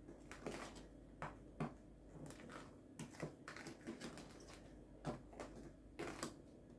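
A spoon stirring a gritty sugar-and-honey scrub in a bowl: faint, irregular scrapes and clicks.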